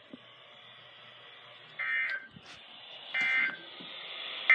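NOAA Weather Radio SAME end-of-message data bursts, short raspy buzzes of digital tones repeating about every 1.3 seconds, marking the end of the weekly test. Two full bursts are heard, and a third, louder one starts right at the end.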